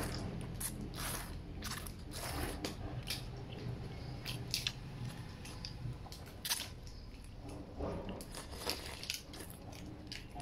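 Vermicelli noodles and goose broth being slurped from bowls held up to the mouth, with chewing in between: many short, irregular slurps.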